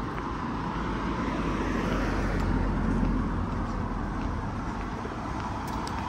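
Road traffic noise: a steady wash of passing cars, swelling slightly a couple of seconds in as a vehicle goes by.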